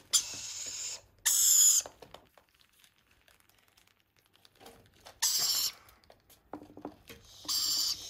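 Baby rainbow lorikeet chicks giving high-pitched begging calls while being spoon-fed formula. There are four short calls, each under a second: two close together at the start, one about five seconds in, and one near the end.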